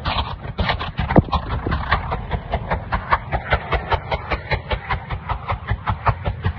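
Rapid, even footsteps, about five a second: someone hurrying with the camera in hand.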